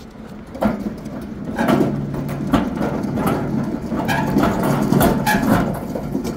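Metal platform cart loaded with two boxes rolling over asphalt, its wheels and frame rattling with many irregular knocks, over a steady low hum.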